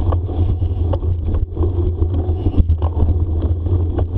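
Riding noise of a bicycle on a dirt forest trail: a steady low rumble with scattered rattles and clicks.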